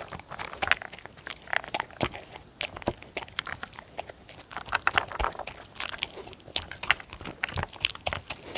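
A dog chewing and crunching salmon-and-turkey jerky, with quick, irregular bites and crunches.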